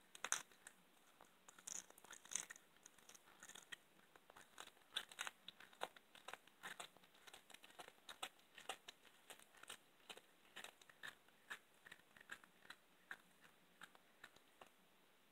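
A cat chewing a raw chicken wing, crunching through the bone and tearing the meat: quiet, irregular crunches and clicks, several a second.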